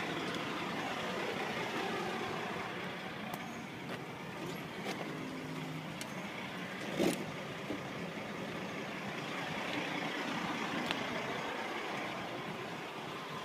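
Steady drone of idling diesel trucks, with a few light clicks and one sharp knock about seven seconds in as the truck's tilt hood is unlatched and opened.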